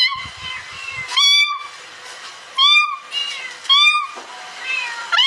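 Kitten meowing repeatedly: four short, high-pitched meows about a second apart, each rising and then falling in pitch.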